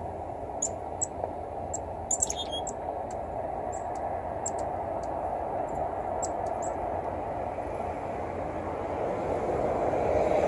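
Short, high, thin call notes of chestnut-backed chickadees, scattered over the first seven seconds with a quick cluster about two seconds in. Beneath them runs a steady low background rumble that grows louder near the end.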